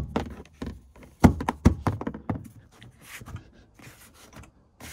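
A hand striking a plastic interior trim panel to snap its retaining clips into the car body: two sharp knocks about a second and a half in, then lighter taps and rustling.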